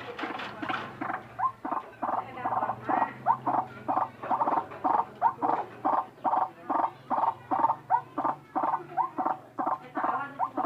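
White-breasted waterhen calling: a long run of short, quick notes, about two to three a second, repeated without a break.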